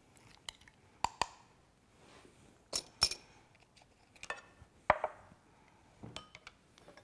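Spoon clinking and tapping against a glass mixing bowl while a thick creamy dip is stirred and the spoon is put down, about eight separate sharp clinks with short ringing, the loudest about five seconds in.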